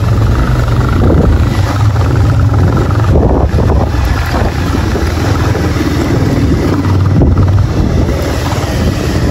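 Motorcycle engine running at a steady cruising speed while riding, with wind rushing over the microphone.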